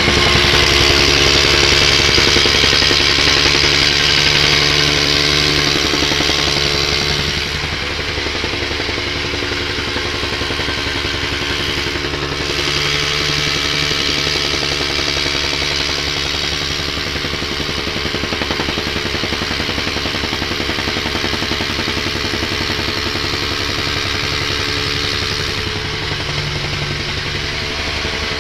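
Wacker Neuson BS 60-2i rammer's small two-stroke engine running steadily, with a rapid even beat; it gets somewhat quieter about seven seconds in.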